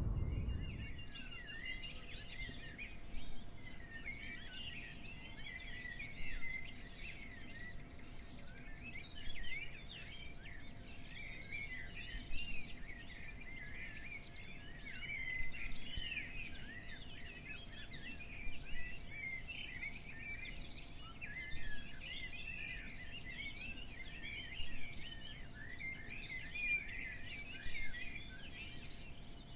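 Dense dawn chorus of many small birds chirping and twittering at once, with a few louder calls standing out now and then. A faint steady hum runs underneath.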